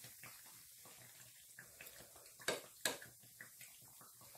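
Fricassé dough rolls deep-frying in a pan of hot oil, with a faint steady sizzle as oil is spooned over them to make the dough puff. A metal spoon clicks sharply against the pan twice, about two and a half seconds in.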